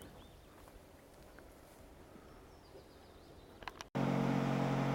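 Quiet outdoor ambience with a few faint chirps, then about four seconds in a motorboat engine starts abruptly, running loud and steady with a low, even drone.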